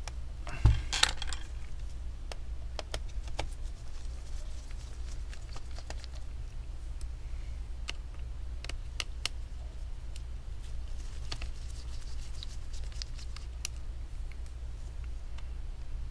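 Scattered light clicks and taps of a screwdriver on a laptop's motherboard screws and chassis, with a low thump under a second in, over a steady low hum.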